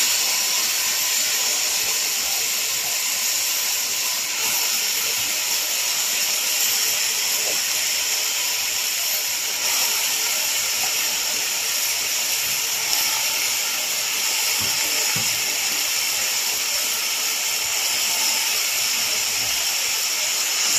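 Steady sizzling hiss of chopped spinach cooking in butter, fried onion and tomato sauce in a pot on the stove, with a few faint clicks.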